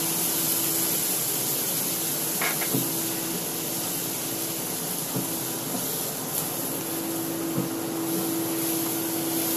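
Beef pieces and soy sauce sizzling in a frying pan as they are stirred with a wooden spatula: a steady hiss with a few light knocks of the spatula on the pan, over a steady low hum.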